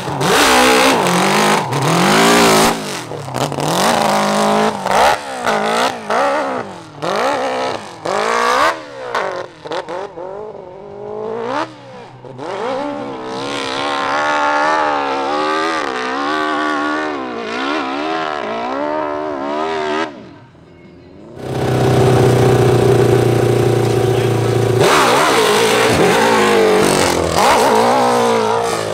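Open-class hill climb motorcycle engine revving hard, its pitch rising and falling again and again. It drops away briefly about two-thirds of the way through, then comes back loud and fairly steady.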